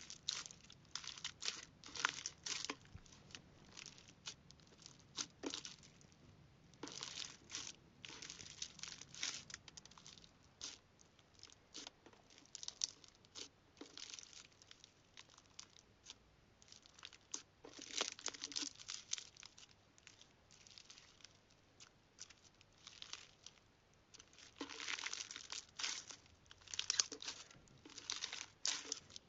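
Slime being squeezed and pressed by hand, giving off crackling, popping sounds in bursts of a second or two with short pauses between them.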